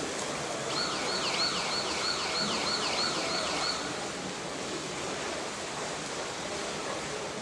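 An underwater hockey referee's electronic siren sounder wails in quick falling sweeps, about three a second for roughly three seconds, the signal to stop play, over a steady wash of pool water and splashing.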